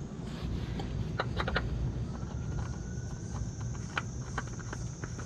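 Scattered light clicks and taps from handling the new oil filter and tools, a cluster about a second in and more near four seconds, over a steady low rumble.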